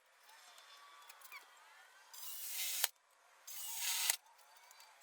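A handheld power tool run in two short bursts, the first ending in a sharp click, as a sheet-aluminium skin is fastened to the ski's frame.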